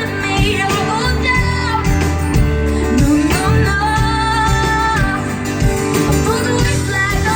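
Live pop-rock band music, guitar-led, with a woman singing long wordless notes over it; one note is held for over a second near the middle.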